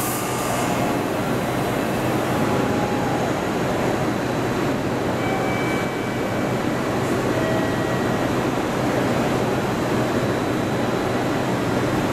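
Steady hum and noise of a JR Central 311 series electric train standing at a station platform, with a brief hiss at the very start.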